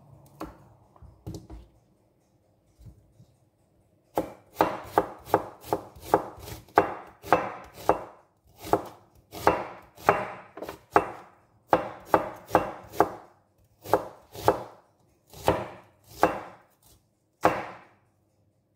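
Kitchen knife slicing a red onion on a cutting board: a few faint strokes, then from about four seconds in a steady run of slicing strokes, roughly two a second, stopping shortly before the end.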